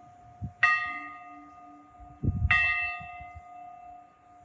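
Monastery church bell struck twice, about two seconds apart, each stroke ringing on and slowly fading. There is a brief low rumble just before the second stroke.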